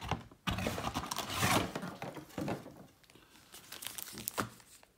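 Foil trading-card pack wrapper crinkling as it is handled and opened, in irregular bursts with a short quiet gap about three seconds in.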